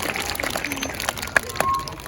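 Audience clapping that thins out and dies away.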